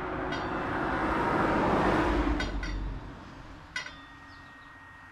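A vehicle passing on the highway: road noise that swells and then fades away over about three seconds, with a few small metallic clinks after it.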